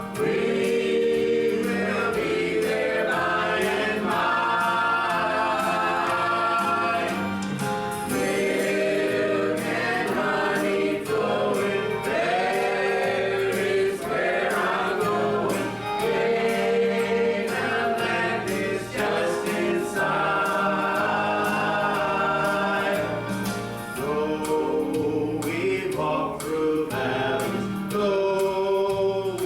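A group of voices singing a gospel hymn together, with sustained notes over a steady low accompaniment.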